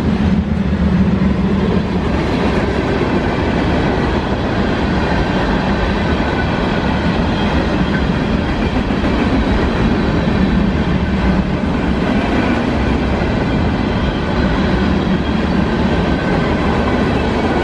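Norfolk Southern freight train's cars rolling past on the rails, a loud steady rumble and clatter with faint high ringing from the wheels. Wind is buffeting the microphone.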